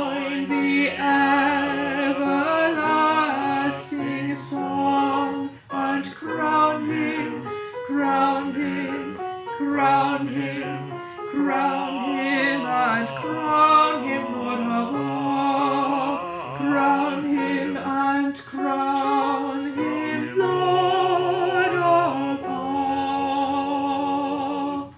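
Music: an alto voice singing the closing lines of a hymn in slow, held notes.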